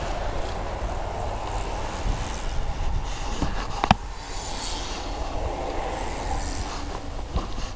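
Steady road rumble with a brief hiss in the middle, broken by one sharp click about four seconds in and a few faint ticks, while the spokes of a bicycle wheel with a broken spoke are handled.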